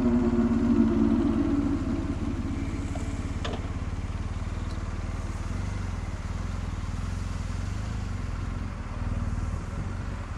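Motorcycle engine running on the move, a pitched hum falling slightly and fading about two seconds in as the engine eases off, then a steady low rumble.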